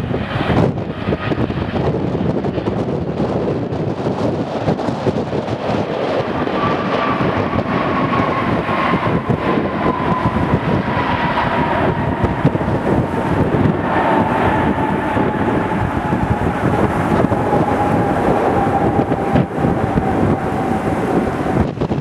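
Jet engines of a Boeing 777 airliner landing and rolling out, heard under heavy wind buffeting on the microphone. An engine whine slides slowly down in pitch through the second half as the aircraft passes and slows.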